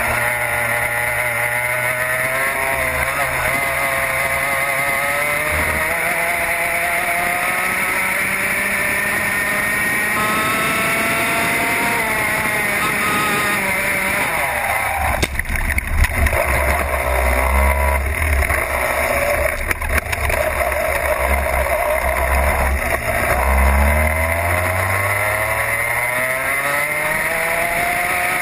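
Racing kart engine heard from onboard at race pace, its revs repeatedly climbing and then dropping. For several seconds in the middle a heavy low rumbling and buffeting joins it.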